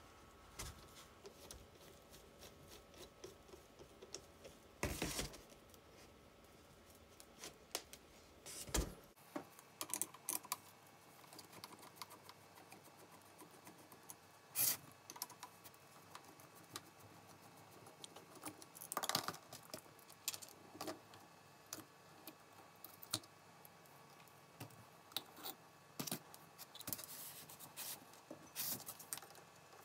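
Light metallic clicks, taps and scrapes of nut drivers and small parts as a Fiat 126 BIS starter motor is unscrewed and taken apart by hand, its solenoid, plunger and spring coming off. The clicks are irregular, with a few louder knocks scattered through.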